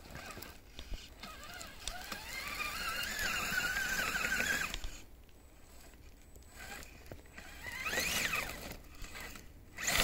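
Electric motor and gear train of a radio-controlled crawler whining, rising in pitch as it speeds up and holding for a few seconds before cutting off. A second, shorter rising whine comes near the end.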